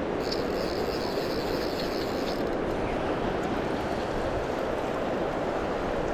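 Steady rush of a big river's flowing water.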